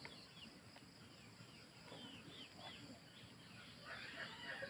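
Faint bird chirps, a few short, quick calls about two seconds in and a busier cluster near the end, over a low background hiss.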